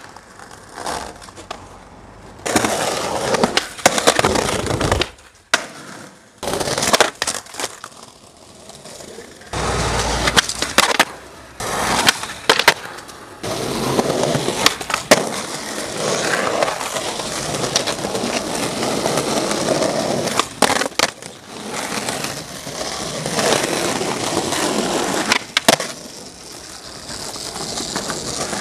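Skateboard wheels rolling over concrete and pavement, broken by many sharp clacks of the board hitting the ground. The rolling noise starts and stops abruptly several times.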